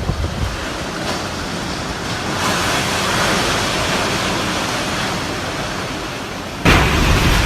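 Typhoon Jebi's wind blowing hard as a steady rushing noise. It swells about two and a half seconds in, and a sudden, louder gust with low rumble hits near the end.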